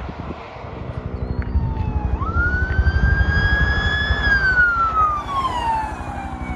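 Fire department emergency vehicle siren on a wail: it rises to a high held note about two seconds in, then falls slowly over the next two seconds. A low pulsing rumble runs underneath, loudest in the middle.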